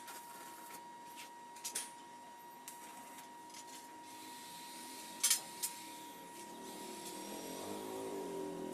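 Faint background noise with a steady high whine and scattered short clicks and taps, the sharpest pair a little past the middle.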